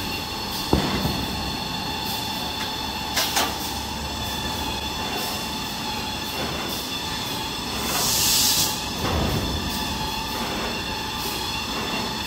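Toilet-paper and kitchen-towel production line running: steady machine noise with a constant hum from the chain-driven log accumulator. There is a sharp knock about a second in, a couple of clicks around three seconds, and a short hiss around eight seconds.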